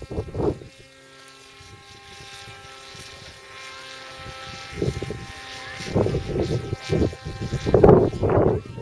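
Autogyro engine and propeller droning overhead, a steady hum of several held pitches. From about five seconds in, bursts of low rumbling noise break over it, loudest near the end.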